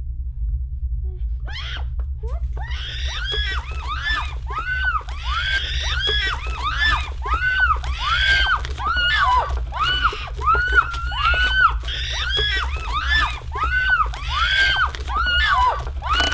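High-pitched shrieking, a run of short cries that each rise and fall, about two a second, over a steady low rumbling drone.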